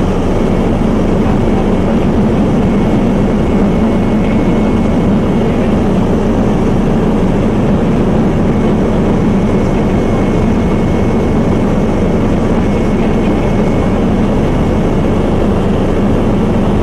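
Steady, loud drone of an aircraft's engines heard from inside the cabin, with a strong low hum and a faint thin whine above it.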